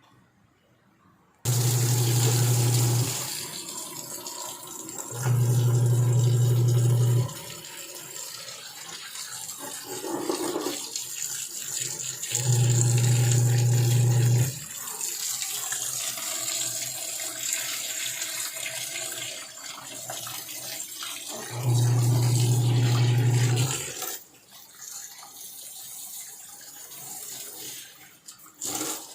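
Washing machine running water, with a low electric hum from a pump or valve that switches on for about two seconds at a time, four times. The water stops about three-quarters of the way through.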